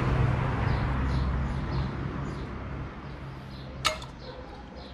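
A passing car's engine hum fading away, then a single sharp click about four seconds in.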